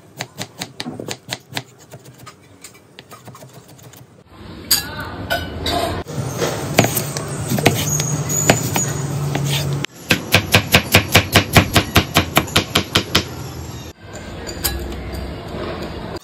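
Chef's knife chopping onion and then cucumber on a bamboo cutting board: runs of quick, even knife strikes on the wood. The densest run, about five strokes a second, comes a little past the middle.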